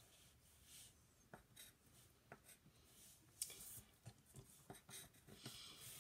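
Faint scratching of a coloring tool drawn across paper in short strokes.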